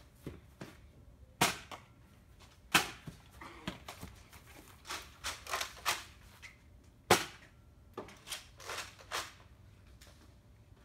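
Nerf dart blasters firing during a shootout: an irregular string of sharp pops and clacks. Loud ones come about a second and a half in and near three seconds, and the loudest about seven seconds in.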